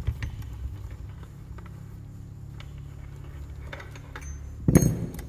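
Faint clicks of a loosened nut and drive hub being unscrewed by hand and handled on a brushcutter engine, over a steady low hum, with one louder knock near the end.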